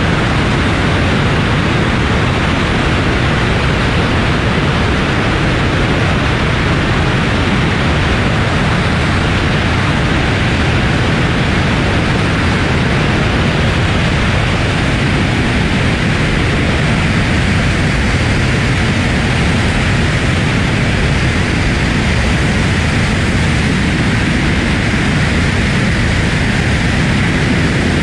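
Tupolev Tu-160 bomber's four turbofan engines at takeoff power, mixed with air rushing past a camera mounted outside on the fuselage: a loud, steady, even rushing noise with no change in level.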